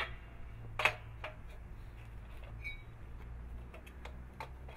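A metal pipe being handled and set into the jaws of a portable clamping workbench: a sharp metallic knock at the start and another about a second in, then a few faint clicks, over a low steady hum.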